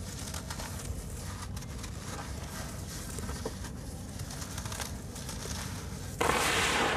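Damp sand-cement chunks crumbled by hand, with soft crackles and crunches. About six seconds in, a sudden louder gritty hiss and crackle as a handful of crumbs pours down onto the wet heap.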